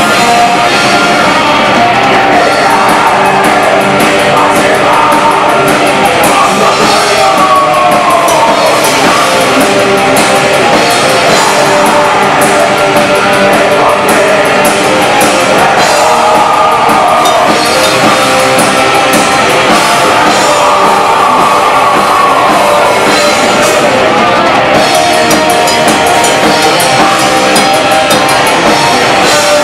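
Black metal band playing live: distorted electric guitars, a pounding drum kit and bass, loud and dense throughout, with melodic lines weaving above.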